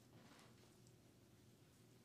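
Near silence: room tone with a faint steady low hum and one faint soft swish about half a second in.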